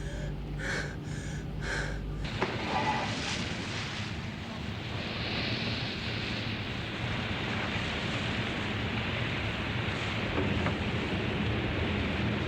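Steady wind and sea noise, a constant rushing hiss that takes over about two seconds in.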